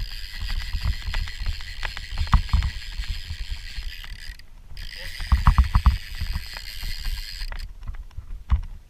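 Fishing reel clicking rapidly while a small hooked cobia is fought toward the kayak, in two long runs with a short break about four and a half seconds in; the clicking stops near the end, with low knocks and bumps on the hull throughout.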